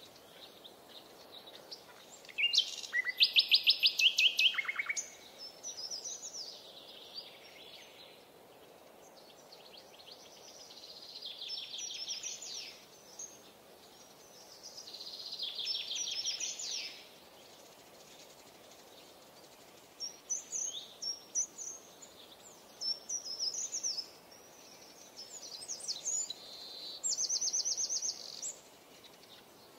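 Songbirds singing: high trilled phrases of rapidly repeated notes come every few seconds. The loudest is a trill about three seconds in. A faint steady hiss runs underneath.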